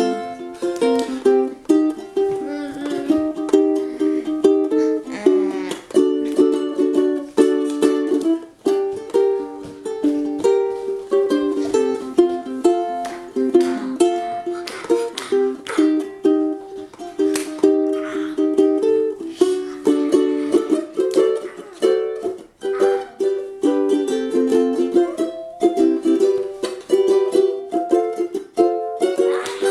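Collings UT-1 mahogany tenor ukulele with Aquila strings being played solo: a melody of plucked notes over chords, with frequent strums.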